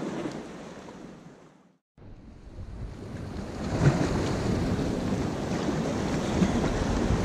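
Sea surf washing against shore rocks, with wind buffeting the microphone. The sound fades out to silence for a moment about a second and a half in, then comes back louder.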